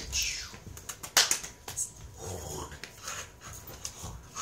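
A dog panting and scuffling during rough hand play, with a sharp smack about a second in.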